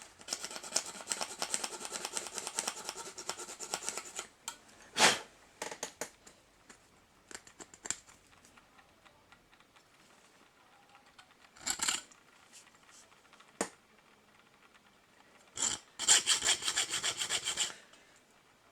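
Small hand file rasping in quick back-and-forth strokes on a small diecast part: a spell of about four seconds at the start and a shorter one near the end, with a few single scrapes and knocks in between.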